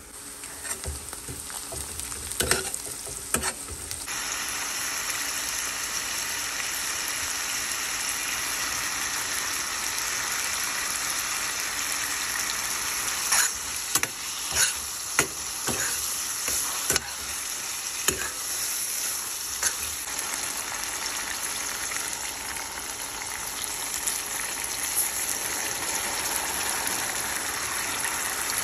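Onions and tomato slices frying in a stainless steel pan with a steady sizzle that gets louder about four seconds in. A metal spoon stirring the pan gives sharp clinks and scrapes now and then, several of them in a cluster about halfway through.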